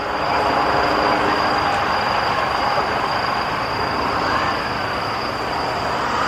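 Road vehicles of a motorcade passing close by on a city street: a steady, loud rush of engine and tyre noise, with a faint rising and falling tone about four seconds in.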